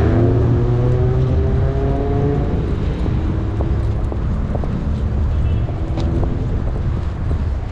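A car driving past close by, its engine rising gently in pitch over the first couple of seconds, over a steady low rumble of street traffic. A short sharp click about six seconds in.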